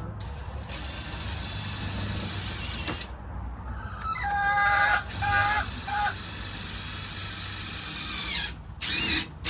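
A cordless drill runs twice for a few seconds each, driving screws. Between the two runs a chicken gives three short clucks.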